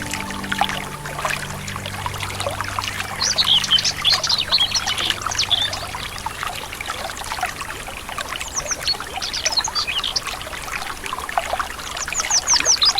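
Forest river water running and trickling steadily, with a bird singing bursts of quick, high chirps a few seconds in, again around the middle, and near the end.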